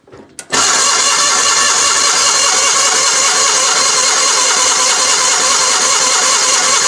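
Gravely 817 tractor engine being cranked by its starter, a loud steady churn that starts about half a second in and does not catch. The engine was just primed with twelve pumps, and the owner suspects he flooded it.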